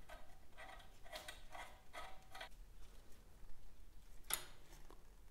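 Faint, light metallic handling of a small bolt and wrench on a steel brake mounting plate, with a sharp click about four and a half seconds in.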